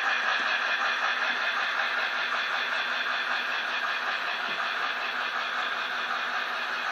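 Model freight train running past on the layout: a steady whir of the cars' wheels rolling on the track, easing off slightly as it goes by.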